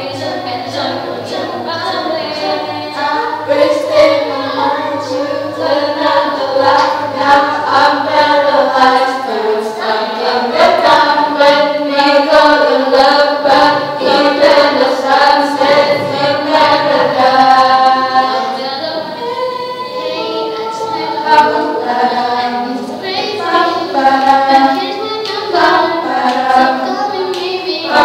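A cappella group of female voices singing a pop song in several-part harmony, with short sharp clicks keeping a beat.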